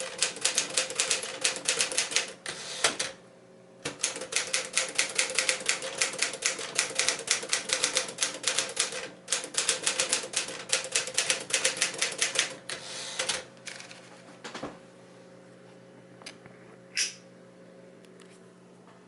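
1958 Smith-Corona 5A Sterling manual typewriter being typed on: fast runs of sharp keystroke clacks, several a second, broken by two short pauses. The typing thins to a few scattered strokes and stops about two-thirds of the way in, leaving a faint steady hum and one brief brighter sound near the end.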